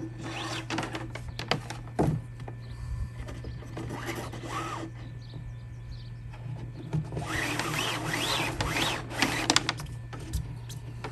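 Bungee shock cord being pulled by hand through plastic deck fittings on a kayak: the cord rubs and slides through in three long pulls, with a couple of light knocks about two seconds in.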